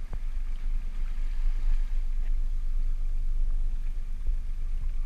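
Low wind rumble buffeting the microphone, with sea water sloshing against a small boat's hull. A single sharp knock sounds just after the start.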